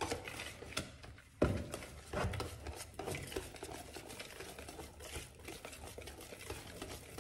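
Hand wire whisk beating thick spätzle batter in a plastic bowl: quick, irregular strokes of the whisk through the dough and against the bowl, with a louder knock about a second and a half in. The batter is being beaten until air bubbles form in it.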